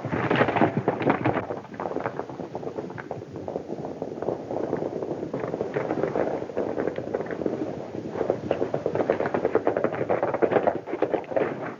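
Hooves of galloping horses, a fast, dense, uneven clatter that goes on throughout.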